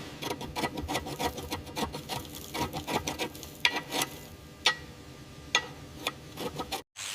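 Hand tools scraping and rubbing on rusted metal, with quick irregular clicks: a dense run of rasping strokes, then a few sharper separate clicks.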